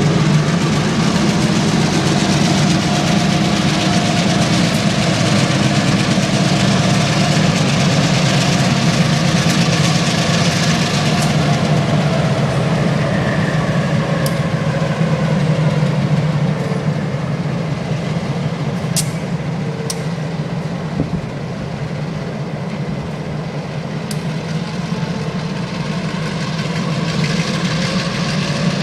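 CSX diesel switcher locomotives running with a steady low engine hum as they move a cut of hopper and tank cars, along with the rumble of the wheels on the rails. The rumble eases about halfway through, and a few sharp clicks follow.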